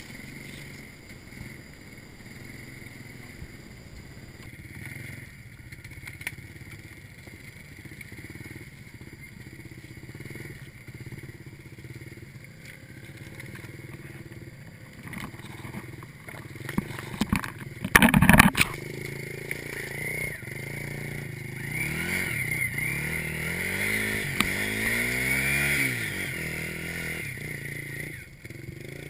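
Small motorcycle engine running low throughout, then revved up and down repeatedly in the second half as the bike is worked over loose logs. A short, loud clatter comes about two-thirds of the way through.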